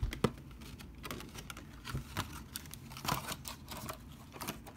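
Hands handling and fitting folding cardboard box-set packaging: scattered light clicks, taps and rubbing of cardboard, with a sharper click about a quarter second in.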